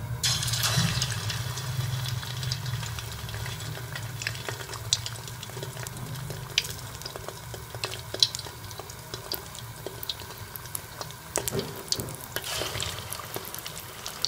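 Egg-dipped potato rolls frying in hot oil in a wok: a sizzle sets in as a roll goes into the oil, then steady sizzling with scattered sharp pops, swelling again near the end as a second roll is added.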